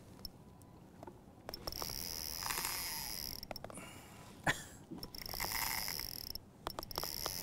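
Spinning reel's drag buzzing in several stretches as a hooked lake trout pulls line off against it, with a few clicks and one sharp knock about halfway through.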